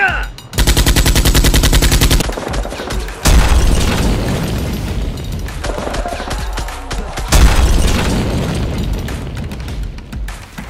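Gunfire: a rapid automatic burst lasting about a second and a half, then two heavy booming shots a few seconds apart, each dying away slowly, over background music.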